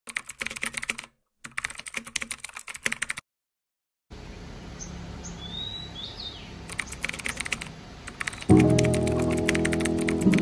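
Rapid clicking of keyboard typing in several short runs, broken by silent gaps, as a typing sound effect. A few faint bird chirps come in the middle over quiet outdoor ambience, and background music enters near the end under more typing.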